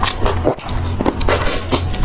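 Close-miked chewing of fried skewered snacks: irregular crunches and mouth clicks, over background music.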